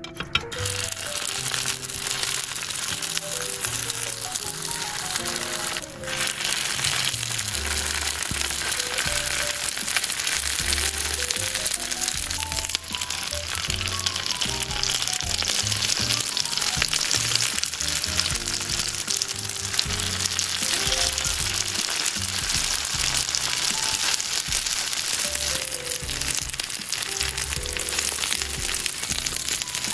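Tofu-and-perilla-leaf rolls frying in olive oil in a flat pan: a dense, steady sizzle that sets in within the first second, under background music.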